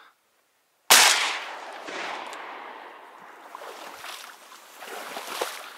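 A single shotgun shot about a second in, fading out over roughly a second, followed by rustling and handling noise as the shooter moves in the grass.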